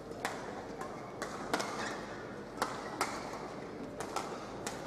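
Badminton rally: sharp cracks of rackets striking the shuttlecock, about eight at uneven intervals, mixed with players' footfalls on the court, over a steady background hum of the hall.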